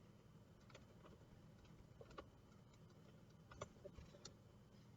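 Near silence with a few faint, scattered clicks and taps, a utensil knocking against a mixing bowl while buttercream frosting is stirred.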